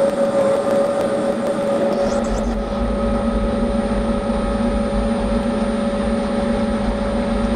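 Milling machine spindle running with a twist drill cutting into a metal cylinder-cover casting: a steady machine whine, joined by a low rumble about two seconds in.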